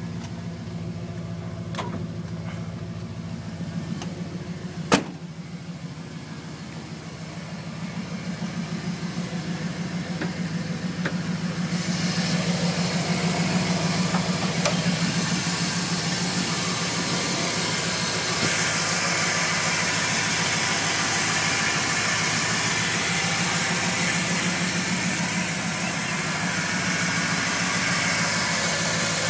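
1993 Ford Lightning's 5.8-litre V8 idling steadily. It is muffled inside the cab at first, then louder and with more hiss and whir up close in the open engine bay from about twelve seconds in. A single sharp knock sounds about five seconds in.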